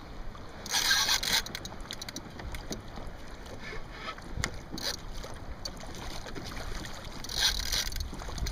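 Water sloshing around a kayak hull, with wind on the microphone. Two louder hissing bursts come about a second in and again near the end, with a few light ticks between them.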